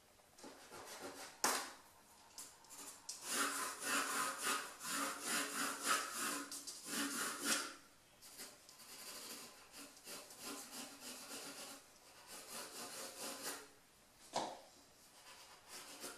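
Yellow wooden pencil scratching on drawing paper in quick back-and-forth sketching strokes, heaviest from about three to seven and a half seconds in, then lighter. A sharper single stroke comes near the start and another near the end.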